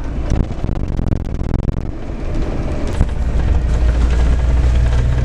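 A large bus running, with engine and road noise. A deep, steady drone grows stronger about three seconds in.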